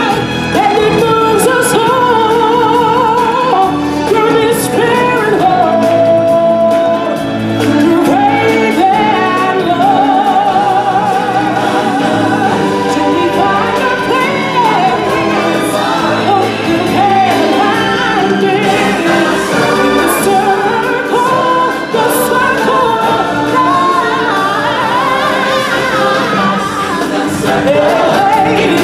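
A stage musical's song: voices and a choir singing over a full musical backing, with long held notes in wide vibrato.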